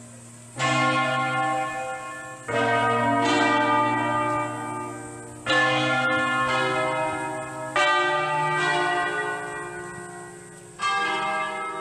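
Several church bells ringing in irregular, overlapping strokes about every one to three seconds, each leaving a long hum that dies away.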